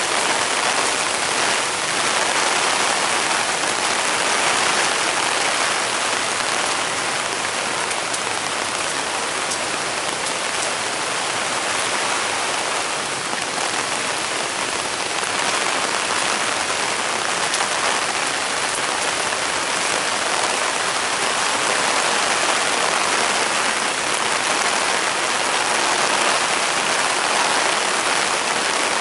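A steady, even rush of water, loud and unbroken, with no separate drips, splashes or steps standing out.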